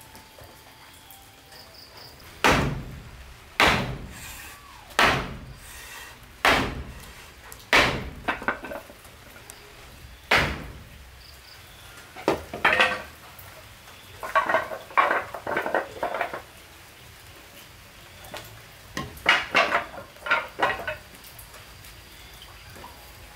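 Hammer striking wood: six heavy blows about a second and a half apart, then two bursts of quicker, lighter taps.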